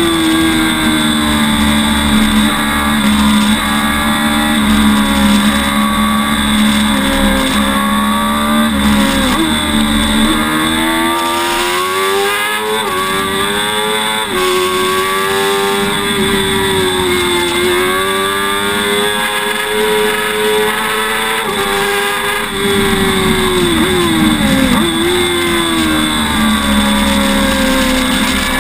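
Sport motorcycle engine running hard at high revs on track, its pitch climbing and then dropping sharply several times as the rider changes gears through straights and corners, over a steady rush of wind noise.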